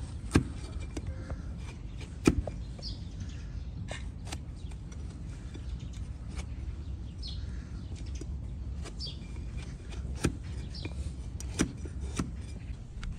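A long-handled hoof knife paring an overgrown donkey hoof on a wooden block, with scraping slices of horn and sharp cracks as the blade goes through and strikes the wood. The loudest cracks come about half a second and two seconds in, and several more follow near the end.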